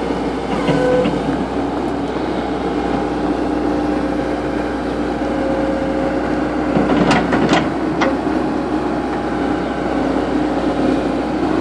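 Cat 312B hydraulic excavator's diesel engine running steadily, with a couple of short sharp clicks about seven seconds in.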